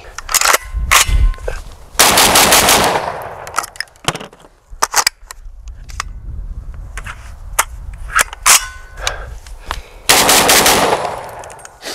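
Two 12-gauge shotgun shots from a JTS AR12 semi-automatic shotgun, about eight seconds apart, each with a short rolling echo. Sharp metallic clicks and knocks of the action being handled come before and between them. The shells are 1325 ft/s Winchester Super X, which this gun does not reliably cycle.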